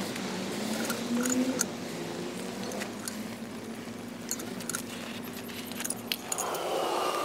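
Flames burning off freshly poured molten aluminium in a sand casting box, hissing with scattered sharp crackles and pops.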